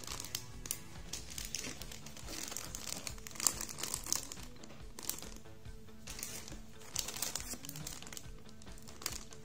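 Clear plastic bags holding plastic model-kit runners crinkle irregularly as they are handled and shuffled, over quiet background music.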